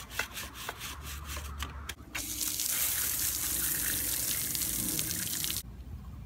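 A stiff brush scrubbing the bicycle's front chainring in quick strokes, about five a second. About two seconds in, a hose nozzle sprays water onto the frame and chainring with a steady hiss, then cuts off suddenly near the end.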